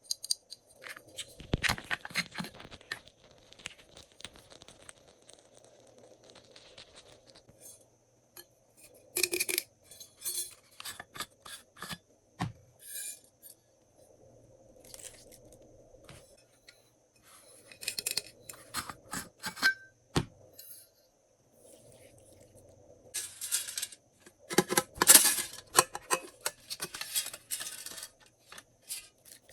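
Glossy slime being squished, stretched and folded by hand, making sticky clicks and crackles in irregular bursts, the loudest about a second in and again near the end.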